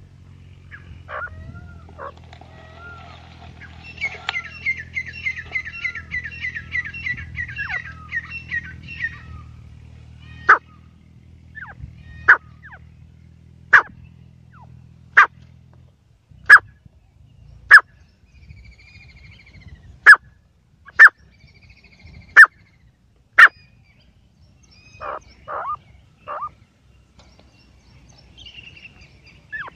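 Francolin (teetar) calling. First comes a rapid chattering run of notes lasting about five seconds. Then come about ten loud, sharp single calls, one every one to two seconds, and a few shorter calls near the end, over a low steady hum that stops about halfway.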